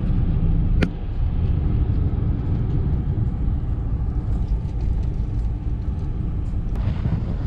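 Steady low rumble of tyres and engine heard from inside a moving vehicle's cab, with a sharp click about a second in. Near the end a brighter hiss joins in.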